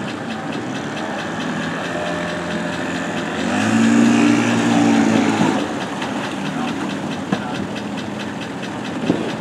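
Engine running steadily with an even ticking, revving up louder about three and a half seconds in and holding for about two seconds before settling back. Two sharp knocks near the end.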